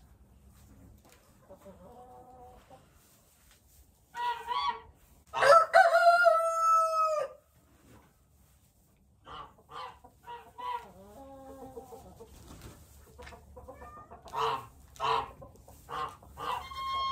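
A rooster crows once, loudly, about five seconds in, a long call lasting about two seconds. Chickens give short clucking calls on and off through the rest.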